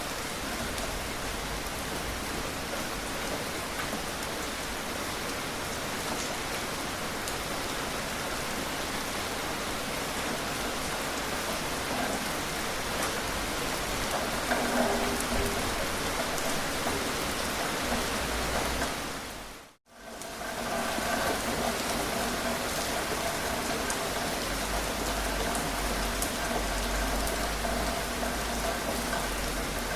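Steady rain falling, a dense even hiss of drops. About two-thirds of the way through it fades out to silence for a moment and fades back in.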